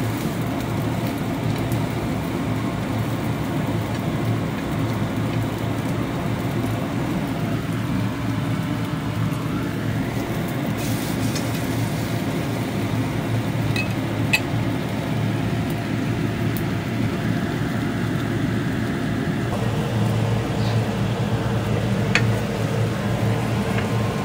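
Steady hum and rush of a kitchen range hood fan running over the stove, with a few light clicks of tongs against a nonstick frying pan.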